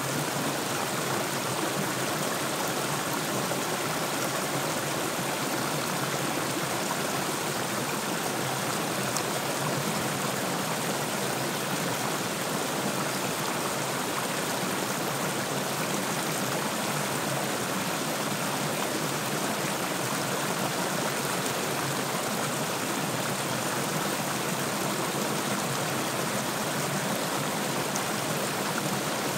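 A small creek flowing over a low rock ledge, the water spilling down in little cascades with a steady, unbroken splashing.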